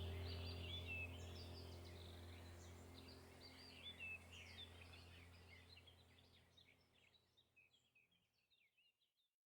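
Birds chirping and twittering over a low steady drone, fading out over about seven seconds into silence.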